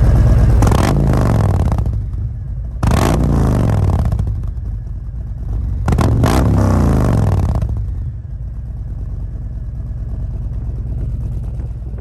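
Harley-Davidson V-twin breathing through an S&S Sidewinder two-into-one exhaust, revved three times at a standstill: each blip jumps up and falls back in pitch, the third a quick double, then it settles into a steady idle.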